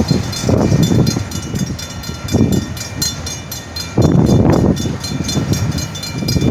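Freight train cars rolling slowly past at a road crossing: a low rumble of wheels on rail that swells and eases, loudest about four seconds in, with a fast, steady high ringing throughout.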